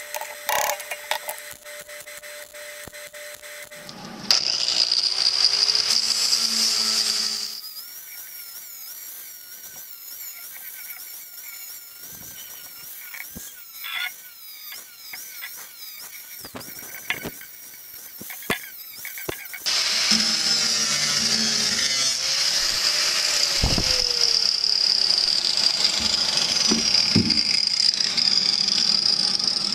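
Angle grinder working the freshly MIG-welded seams of a steel floor-pan patch, with a high whine. It runs loud for a few seconds about four seconds in, goes quieter with a wavering pitch and scattered clicks through the middle, then runs loud and steady again for the last ten seconds.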